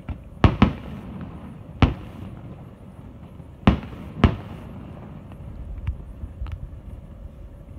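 Fireworks bursting over a steady low rumble. There are five sharp bangs in the first four and a half seconds: a close pair, then a single, then another pair. Two fainter pops follow later.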